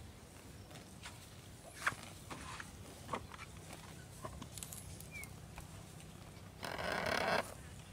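Young water buffalo calf giving one short call near the end, after a few seconds of faint ticks and rustles of steps in the grass.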